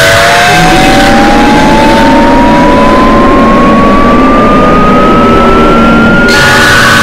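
Loud, harsh layered noise with steady hums, over which a single pure tone glides slowly and steadily upward in pitch throughout. The hiss in the top range drops away about a second in and comes back near the end.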